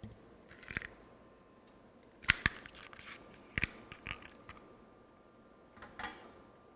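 Small hand tools clicking and tapping at a circuit board while desoldering a capacitor with solder wick: a few scattered sharp clicks, the loudest pair about two seconds in.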